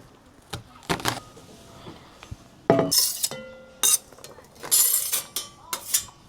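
Metal cookware and utensils clinking and knocking as they are handled: a handful of sharp knocks, one about three seconds in ringing briefly with a clear metallic tone.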